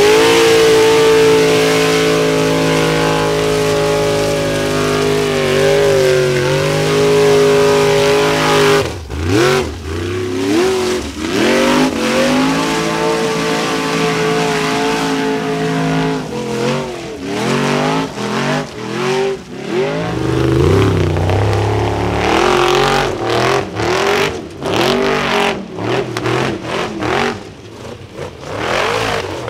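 High-powered Formula Offroad 4x4 buggy engine at full throttle on a hill climb, held at high revs for the first nine seconds or so, then revving up and down sharply again and again as the throttle is worked, with short cracks in between.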